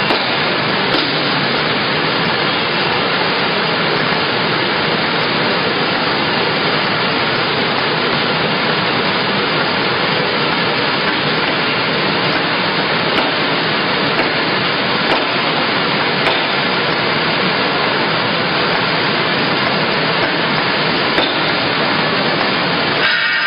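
Pocket envelope-making machine for peel-and-seal envelopes running at speed: a steady, dense mechanical rush with occasional sharp clicks.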